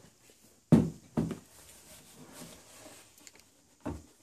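Handling sounds from a metal DVR case being set down on a wooden table and its front panel closed: two sharp knocks about a second in, a soft scraping, then a lighter knock near the end.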